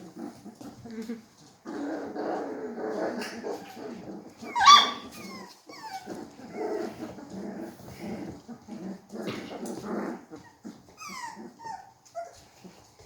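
Four-week-old Bernedoodle puppies play-growling, with one sharp, loud yelp about five seconds in and a few short falling whines near the end.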